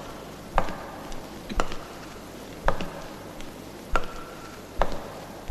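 Slow footsteps on a tiled floor: five sharp steps about a second apart.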